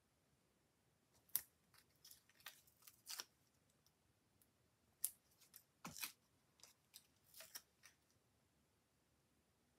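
Foam adhesive pads being peeled and pressed onto the back of a paper cut-out: scattered faint clicks and crackles, a few sharper snaps among them.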